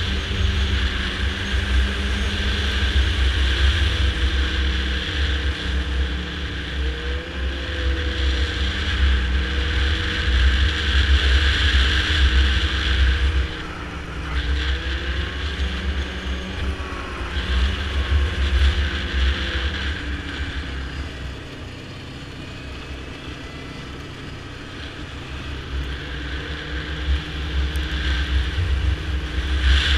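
Yamaha snowmobile engine running under way, its pitch rising and falling with the throttle, with heavy wind buffeting on the microphone. It eases off about two-thirds of the way through and picks up again near the end.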